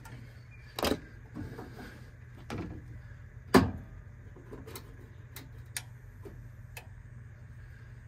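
Several sharp clicks and knocks from hands working at the wiring and control board inside a furnace cabinet, the loudest about three and a half seconds in, over a steady low hum.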